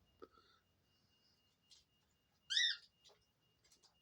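A bird's single short high chirp a little over halfway through, rising then falling in pitch, with a few faint clicks around it.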